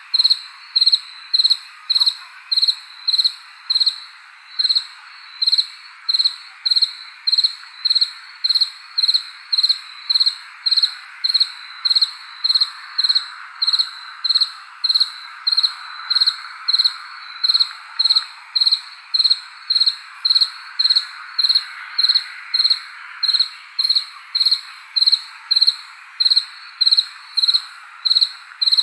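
A cricket chirping in a steady, even rhythm, about three high-pitched chirps every two seconds, over a continuous background hiss.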